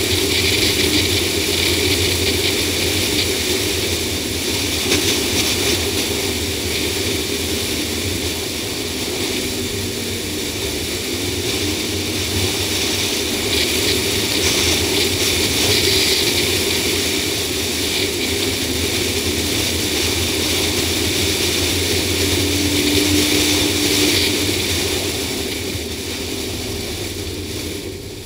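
Steady rush of wind and road noise over the engine's drone from a Ford Explorer V8 at driving speed, picked up by a camera mounted on the outside of the hood. The noise dies down over the last couple of seconds.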